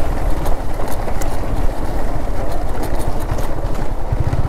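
Motorcycle engine running steadily under way, with a few faint ticks.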